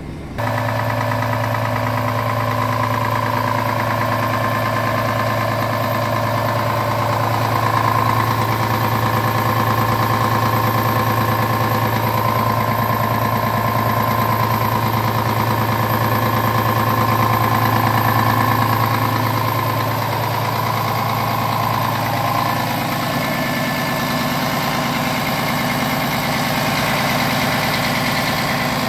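Scania R450 tractor unit's 13-litre straight-six diesel idling steadily, heard up close at the open front grille.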